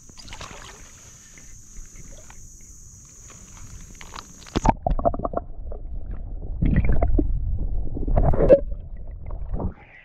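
Muffled underwater rumbling, swishing and knocks as the camera microphone is plunged into the creek while hands release a fish. The steady high hiss heard above water cuts off suddenly about four and a half seconds in, when the microphone goes under, and the muffled sound ends as it comes back up near the end.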